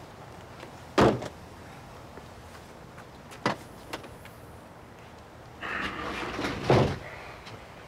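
A car door shuts with a sharp thump about a second in, and another smaller knock follows a couple of seconds later. Near the end a hard plastic equipment case rattles on its wheels over stone paving for a little over a second and is set down with a thump.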